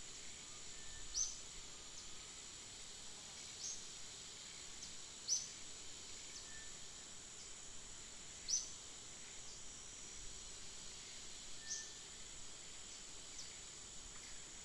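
A steady high insect drone, with short high chirps falling in pitch every second or two.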